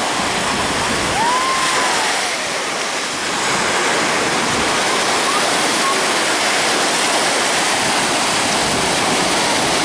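Shallow surf washing steadily around the board and the wader, an even rushing of water. A faint whistle-like tone rises and falls about a second in.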